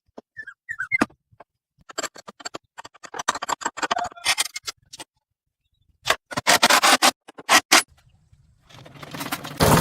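A run of sharp clicks, taps and short scrapes from hand work on metal parts, then near the end an engine starts and settles into a steady run.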